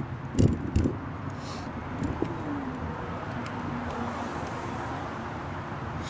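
Steady wind and traffic rumble heard from a moving bicycle, with two loud thumps about half a second in and a lower tone that falls slowly in pitch midway.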